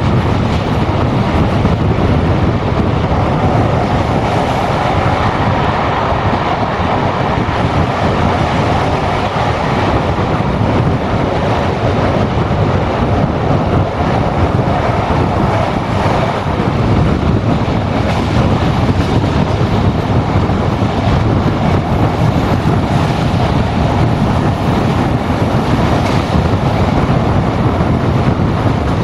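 Passenger train running at speed, heard from an open coach window: the steady rolling noise of the wheels on the track mixed with wind rushing over the microphone.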